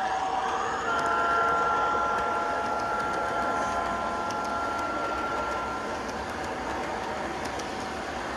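Model diesel locomotive's onboard sound unit sounding a multi-tone horn chord. The horn starts about a second in and fades out about five seconds later. Underneath it the model freight train's wheels roll steadily along the track with faint clicks.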